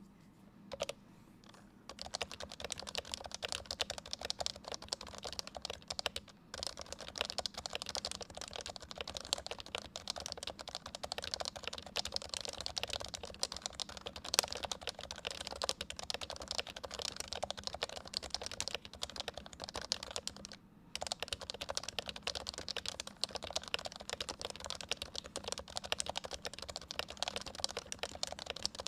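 Continuous fast typing on an HHKB Professional 3 keyboard with Topre switches, a dense stream of keystrokes starting about two seconds in, broken by two brief pauses.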